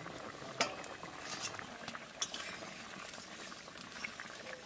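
Fish curry simmering in a steel wok with a steady bubbling hiss, as a metal spoon stirs it and a metal plate lid clinks against the pan a few times, the sharpest clink about half a second in.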